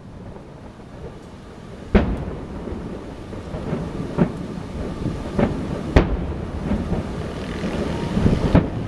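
Fireworks exploding: two sharp bangs, about two seconds in and again four seconds later, with several fainter pops between them. Wind buffets the microphone throughout.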